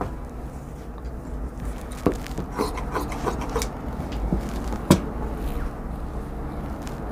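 Cotton shirt fabric and cut scrap strips being handled and gathered on a cutting table: crackly rustling with short ticks, and two sharp knocks on the table, the second and louder one about five seconds in. A steady low hum runs underneath.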